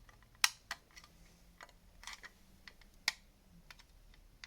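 Scattered sharp clicks and taps of a circuit-board module being pressed into the hooks of a plastic oscilloscope extension cover, the loudest about half a second in and again about three seconds in.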